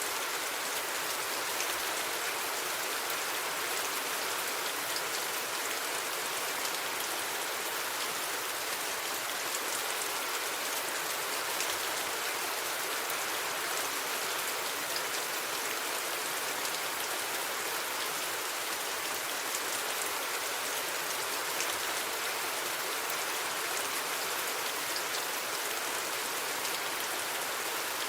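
Steady rain falling, with many small drop hits in an even hiss and no thunder.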